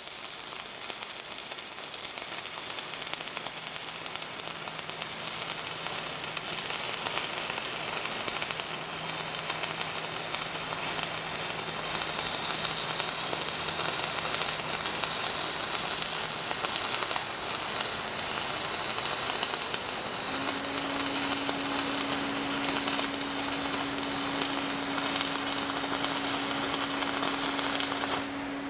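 Stick-welding arc of a 1/8-inch E6010 electrode burning at 110 amps on 3/8-inch steel plate: a steady, harsh crackling sizzle with a faint hum underneath. It cuts off abruptly near the end.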